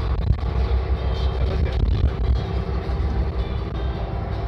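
Steady engine and road rumble heard from inside a moving vehicle's cabin.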